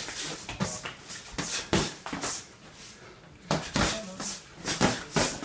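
Boxing gloves landing during sparring: a quick, irregular run of sharp slaps and thuds of punches on gloves and body, with a short lull in the middle.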